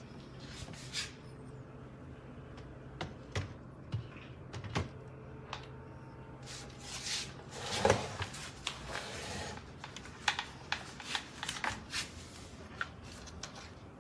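Objects being handled by hand: scattered light clicks and knocks with some rustling, the loudest knock and rustle about eight seconds in. No vacuum motor is running.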